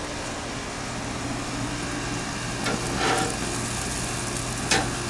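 Hot dogs sizzling on a grill grate, a steady hiss with a low hum underneath. A few short clicks come around the middle and again near the end.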